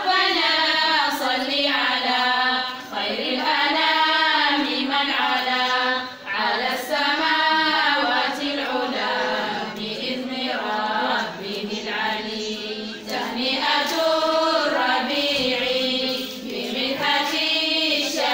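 Women's and girls' voices chanting together in a melodic religious recitation, in sung phrases of one to three seconds with short breaks between them.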